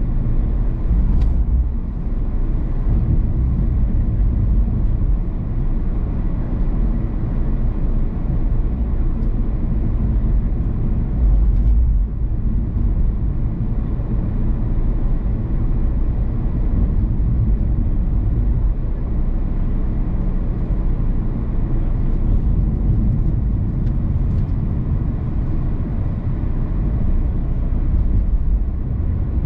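Car driving at a steady speed: a continuous low tyre and road rumble.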